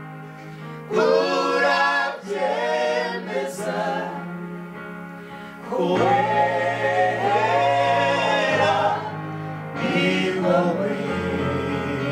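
Gospel worship music: voices singing together in three long phrases over steady held chords.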